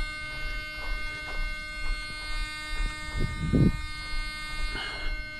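Electric ducted fan of an RC jet spinning at low idle: a steady buzzing whine. A brief low rumble, as of wind or handling on the microphone, comes about three seconds in.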